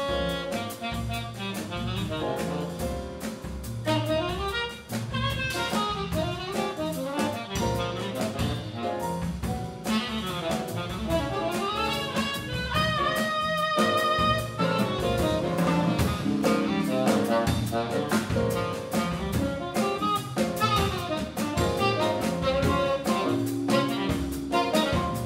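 Jazz big band playing, a saxophone soloing over piano, guitar, double bass and drums, with held brass and saxophone chords coming in around the middle.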